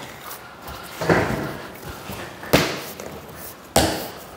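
Three knocks, about a second and a half apart, from a rigid-core vinyl plank being handled and worked for a lengthwise cut; the last two are sharper.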